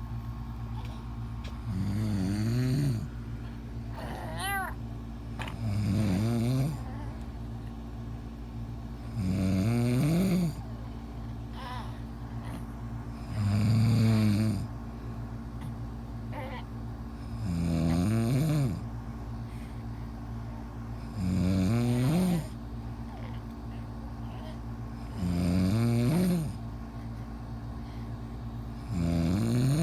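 A sleeping man snoring in a slow, regular rhythm: eight loud, rasping snores about every four seconds, each lasting a little over a second. A steady low hum runs underneath, and a brief high whistle sounds once between the first and second snores.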